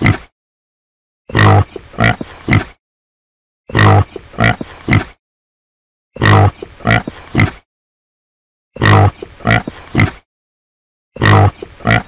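Domestic pig grunting: the same short burst of one long grunt followed by two shorter ones, repeated about every two and a half seconds, five times over, with dead silence between.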